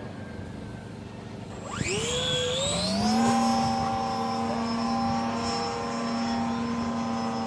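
Electric motor of an RC sailplane, a Jeti 2035 brushless driving a 20x13 folding propeller, powering up about two seconds in. Its whine rises sharply in pitch, then holds steady at full power.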